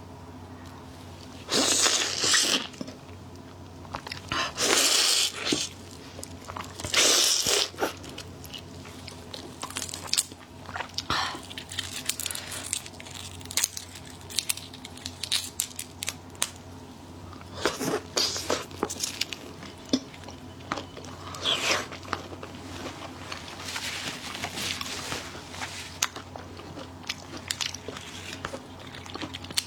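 Close-miked ASMR eating of big shrimp: loud crunching bites and wet chewing, several strong crunch bursts among many small clicks of chewing, over a low steady hum.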